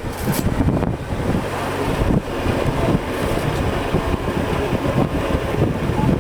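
Wind buffeting the microphone in a steady, uneven low rumble.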